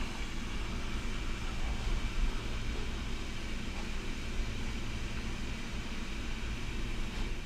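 Instant Pot pressure cooker's steam release valve hissing steadily through a tea towel as the last of the pressure is vented. The hiss stops right at the end, as the pressure runs out and the float pin drops.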